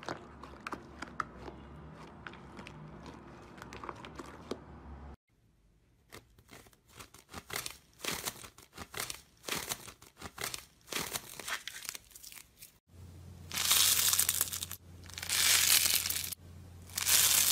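Slime being squeezed and pulled by hand: a run of small sticky clicks and pops, then a crackling stretch. In the last few seconds there is louder crunchy tearing as a grainy teal slime is pulled apart, the loudest sound here.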